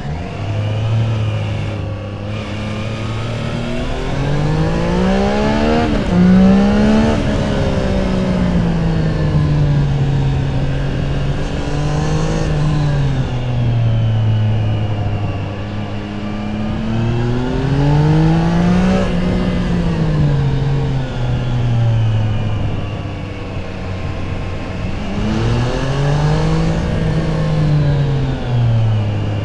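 Triumph Tiger 660 Sport's stock-exhaust 660 cc inline three-cylinder engine on the move, its pitch climbing under throttle and falling back several times as the bike accelerates and eases off through the bends.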